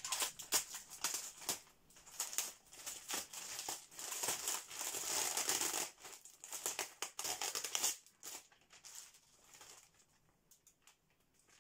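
Clear plastic parcel wrapping and packing tape crinkling and crackling as the parcel is cut and pulled open, with many sharp cracks. It thins out about eight seconds in, leaving only faint rustles.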